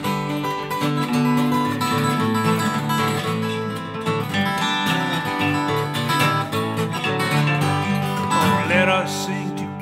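Instrumental break on acoustic guitar, fingerpicked Piedmont-style, with a dobro (a resonator guitar played flat with a steel bar) taking the lead in a blues-gospel tune.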